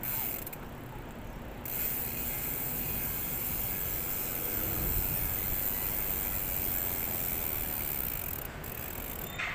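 Mountain bike's rear freewheel hub ticking steadily as the bike coasts, with a short break near the start, over a low rumble of road noise.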